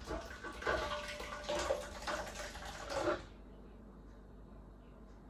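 Thick tomato purée poured from a measuring pot into a large metal basin, splashing and glugging unevenly; the pouring stops a little after three seconds in.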